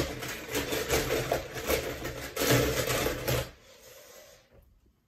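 Die-cast toy cars clattering and rattling against one another as a hand stirs them around in a bowl. The rattling stops about three and a half seconds in.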